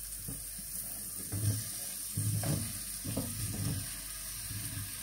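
Potato pieces tipped from a plastic bowl into a pot of frying onion, carrot and pepper, tumbling in three rushes about a second apart over the sizzle of the frying.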